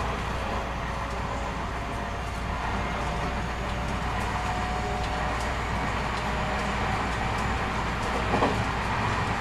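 JR West 223 series 2000 electric multiple unit running steadily, heard from inside a motor car: an even rumble of wheels on rail with a faint steady whine from the Hitachi IGBT-inverter traction motors.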